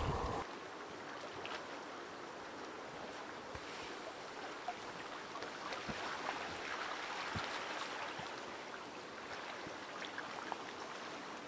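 Ice floes drifting on a river in the spring breakup: a steady hiss of many floes brushing and jostling together in the current, with scattered faint clicks and knocks.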